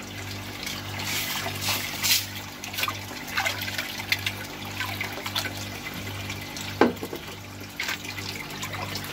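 Water sloshing and bubbling in an aquarium, with scattered splashes and drips, over a low hum that pulses evenly about one and a half times a second.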